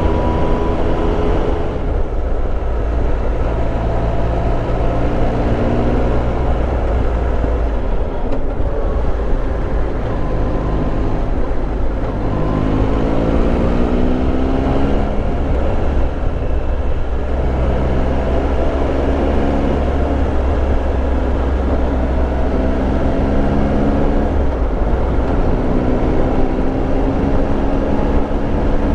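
Triumph Tiger Explorer 1200's three-cylinder engine under way, its note rising several times as the bike accelerates and dropping back at each gear change, over a steady low rush of wind and road noise.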